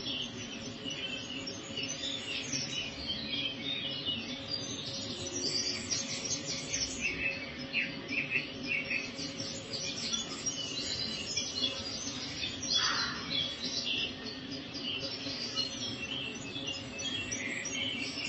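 Many small birds chirping and singing, short high chirps and trills overlapping throughout, over a steady low hum. One brief lower-pitched sound stands out about two-thirds of the way through.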